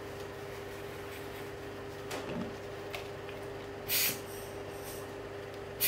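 Two short hissing puffs of air, about two seconds apart, as the rear element of a camera lens is cleaned, over a steady low hum. A soft rustle and a small click come before them.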